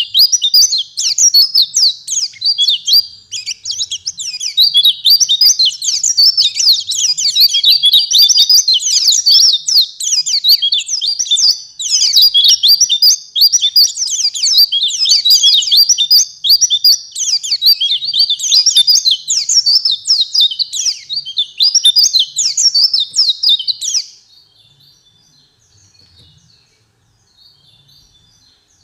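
White-eye (pleci) song: a fast, unbroken run of high chirps and rattling trills that stops abruptly about 24 seconds in, leaving only faint, scattered chirps.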